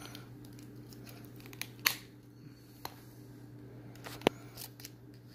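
Needle-nose pliers gripping and tugging a stiff leather lace and its lacing needle through a stitch hole: a few sharp small clicks and light handling noise, the sharpest click about four seconds in, over a steady low hum.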